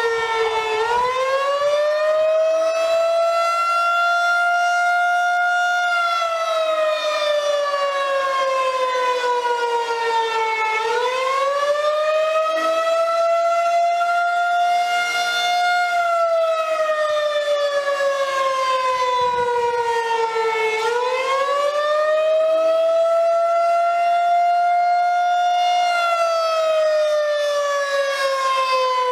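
Pole-mounted rotating outdoor tornado warning siren sounding a wailing tone for a tornado drill. Its pitch climbs for a few seconds, holds briefly, then slowly falls, repeating about every ten seconds, three times.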